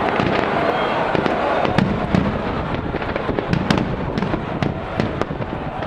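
Fireworks display going off: a continuous din of crackling bursts, with many sharp cracks at irregular moments, several a second.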